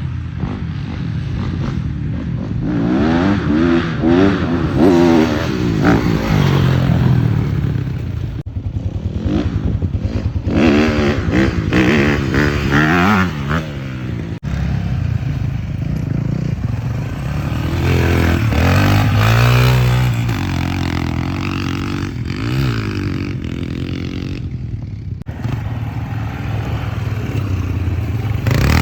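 A motor vehicle's engine running, its pitch rising and falling again and again, with rattling and clatter.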